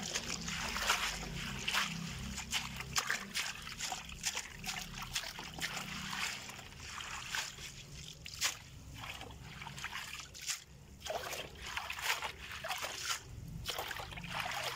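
Water trickling and splashing as freshly picked herb sprigs are rinsed by hand, with irregular small splashes and drips.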